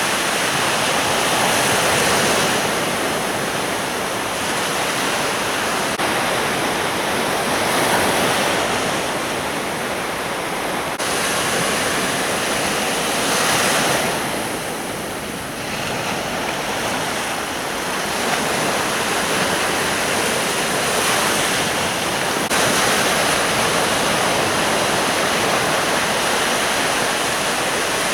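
Sea waves breaking and washing up on a beach, a steady rush of surf that swells and eases every few seconds.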